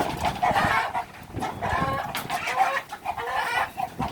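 Chickens clucking and squawking in a run of short calls.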